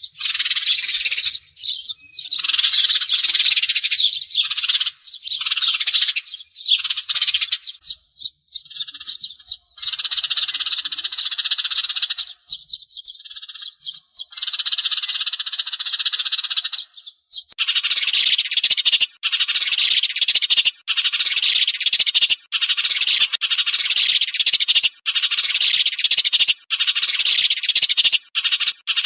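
Sparrows chirping in a dense, continuous chorus, a call recording used as a lure for glue-trapping sparrows. About seventeen seconds in the chirping turns into a steadier run broken by brief gaps.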